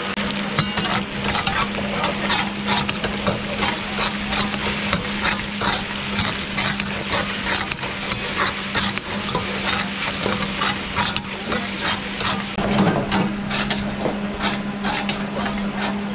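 Meat sizzling as it fries in a karahi, a wok-like pan, and being stirred, with many sharp scrapes and clicks of the stirring tool against the pan. A steady low hum runs underneath.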